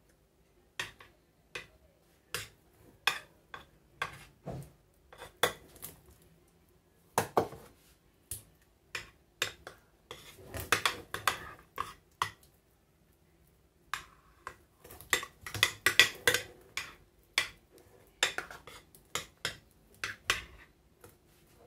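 Metal spoon clinking and scraping against a glass baking dish while a thick chocolate cream is spread smooth. The clicks come irregularly, about one a second at first and much thicker in the second half.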